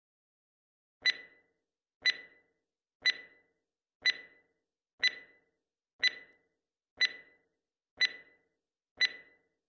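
Countdown timer sound effect: a short, sharp tick with a brief ringing tone, nine times, once a second.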